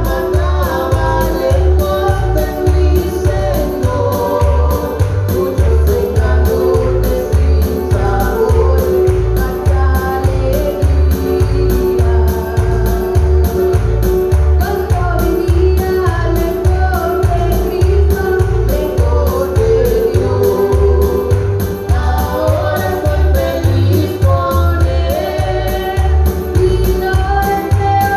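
A Spanish-language Christian hymn sung to music with a steady, pulsing bass beat.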